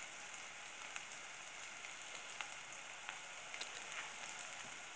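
Chopped onion, crushed garlic, turmeric and paprika frying in oil in an enamel pot: a steady, faint sizzle with scattered small crackles.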